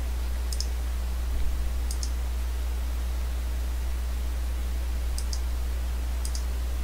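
Computer mouse button clicking four times, each click a quick press-and-release pair, over a steady low electrical hum.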